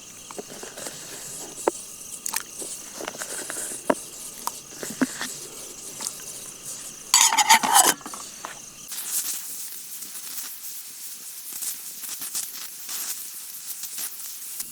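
Pressure cooker of dal on a campfire letting off a loud, hissing whistle of about a second, about seven seconds in, followed by a steady steam hiss. Insects chirr steadily and there are scattered sharp crackles throughout.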